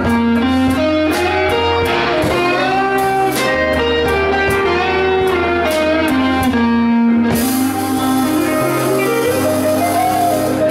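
Live blues-rock band playing: an electric guitar lead of held notes stepping from one to the next over bass guitar, drums and keyboard. About seven seconds in, a steady cymbal wash comes in.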